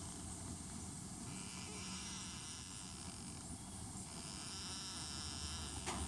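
Newborn kittens squeaking faintly in thin, high, drawn-out cries that come and go, over a steady low background rumble, with one sharp click near the end.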